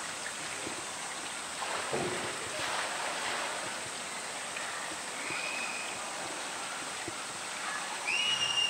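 Steady rush of water in a polar bear's pool, with splashing about two seconds in as the bear moves through the water. Two short, high, even-pitched calls sound over it, one about five seconds in and a louder one near the end.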